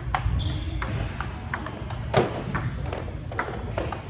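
Table tennis rally: the celluloid-type plastic ball clicking off rubber paddles and the table top in quick, sharp ticks, about two a second, with one louder hit a little past halfway.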